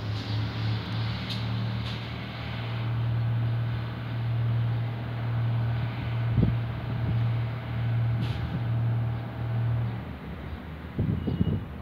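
Diesel multiple-unit trains standing at the station with their engines idling: a steady low hum that fades about ten seconds in. A few short clicks and one dull thump come through over it.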